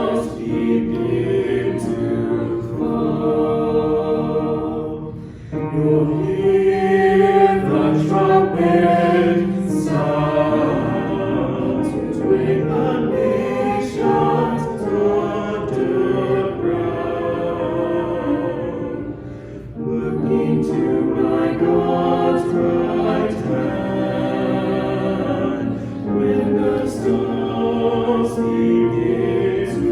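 Choir singing a worship song, in long sung phrases broken by short pauses about five and twenty seconds in.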